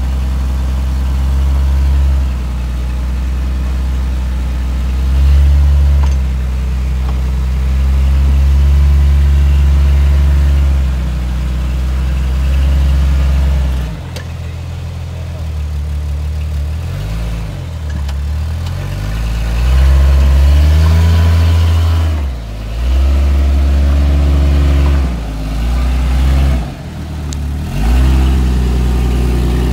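Engine of a lifted Jeep Grand Cherokee rock crawling: running steadily at low revs through the first half, then revved up and back down several times in the second half as it works over the ledge.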